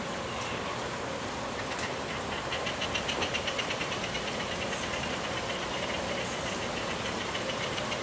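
A seabird's rapid rattling call, about eight pulses a second, starting about two seconds in and fading out over a few seconds, over a steady background hiss.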